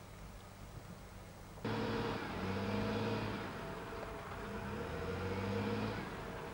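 Engine of a heavy work machine running under varying load, its pitch rising and falling. The engine starts abruptly about one and a half seconds in, over a faint low hum.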